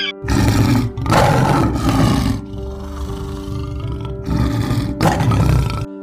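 A large animal roaring: a series of deep, rough roars, one after another, over steady background music.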